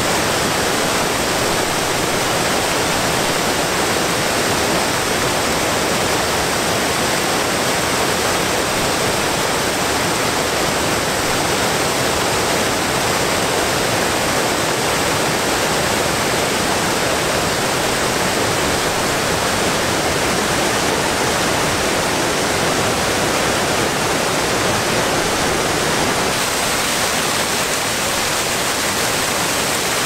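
Small waterfalls cascading over mossy ledges into a stream: a steady rush of falling water. The rush loses a little of its low end near the end.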